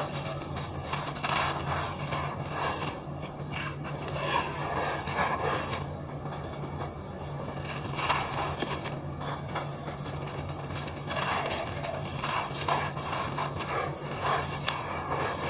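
Dry, gritty sand-cement mix being crushed and crumbled in bare hands, the loose grit pouring and trickling back onto a floor of more dry grit. The crunching and sifting comes in repeated surges as each handful is squeezed and let fall.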